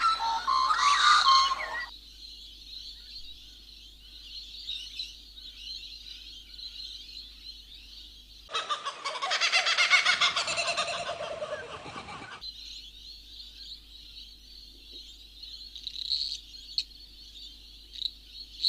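Birds calling loudly for the first couple of seconds, and again in a burst of about four seconds midway, over a steady high-pitched chorus that fills the rest.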